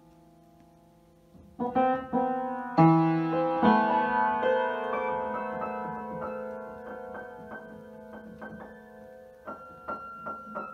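Piano keys pressed by a cat walking across the keyboard: jumbled clusters of notes strike loudly about a second and a half in and ring on, fading. Scattered softer notes follow, with a few more sharp notes near the end.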